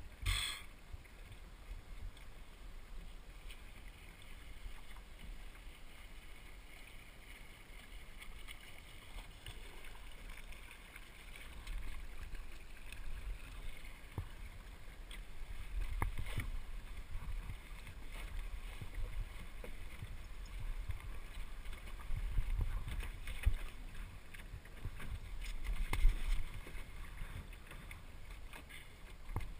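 Water washing against the hull of a small El Toro sailing dinghy under way, with wind rumbling on the microphone. A few sharp knocks come from the boat, the loudest about 26 seconds in.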